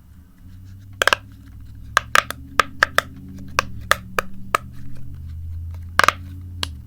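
Silicone pop-it fidget toy with a tie-dye pattern, its bubbles pressed one after another: a string of sharp pops at uneven spacing, with a pause before a loud pop about six seconds in.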